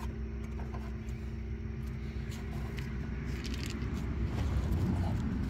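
A steady low mechanical hum, with a few faint clicks and light scraping from hands working on metal parts under a four-wheeler's front bumper; the scraping and rustling grow busier from about three seconds in.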